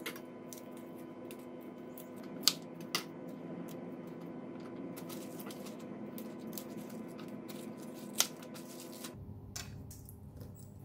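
Kitchen knife cutting mustard green leaves from their crisp stems on a wooden chopping board: light handling noise and a few sharp clicks, the loudest about two and a half seconds in and another about eight seconds in, over a steady low hum.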